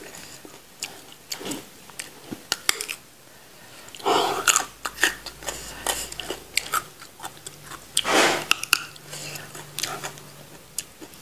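Close-up biting and chewing of raw papaya stalk: crisp crunches and wet mouth clicks, with two louder crunching bites about four and eight seconds in.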